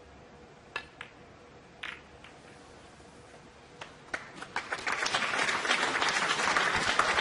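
Snooker balls clicking together a few times as a shot plays out, then audience applause that builds from about four seconds in and grows loud near the end.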